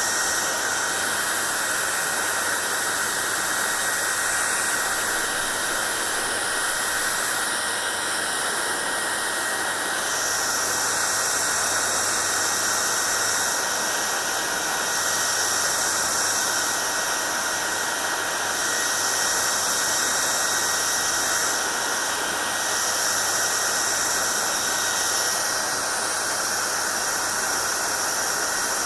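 Hand-held hair dryer running continuously: a steady rush of blown air with a thin, constant whine and a low hum. The airy hiss on top rises and falls slightly every few seconds.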